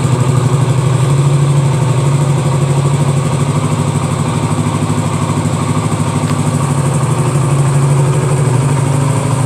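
Honda CB400SS's 397 cc air-cooled, carbureted single-cylinder four-stroke engine idling steadily with an even, unchanging beat.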